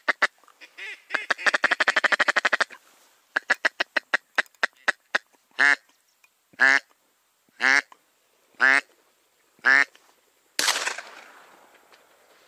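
Duck quacking: a fast chattering run of short notes, then five loud, evenly spaced quacks about a second apart, followed by a sudden noisy burst that fades over about a second.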